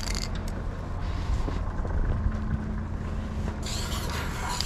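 A steady low rumble, then about three and a half seconds in an aerosol spray-paint can starts spraying with a loud, even hiss.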